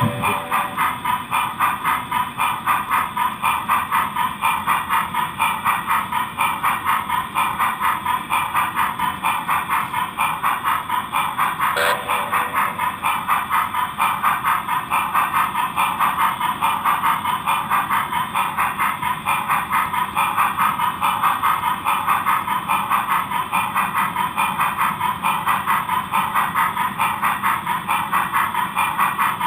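Steam locomotive chuffing in a steady, even rhythm, with a short tone about twelve seconds in.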